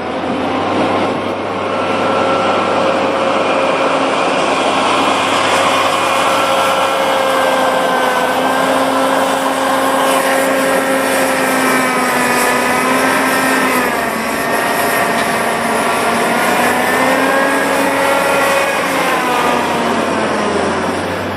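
A large engine running loud, its pitch drifting up and down as the load or revs change, over a constant mechanical rush.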